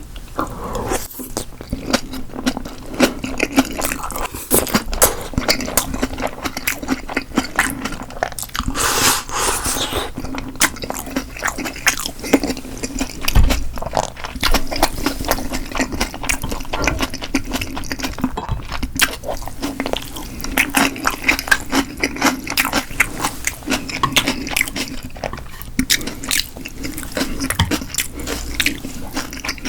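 Close-miked chewing and biting of food, with wet mouth clicks and smacks throughout and a brief hissing rush about nine seconds in.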